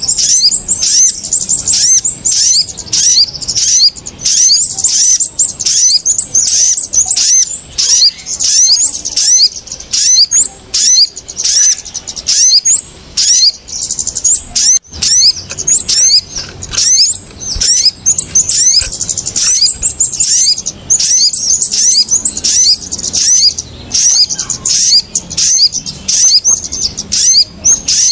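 Bird-trapping lure recording of kemade and sogon (sunbird) calls in an agitated, noisy chorus: dense, rapid high-pitched chirps several a second, without a pause.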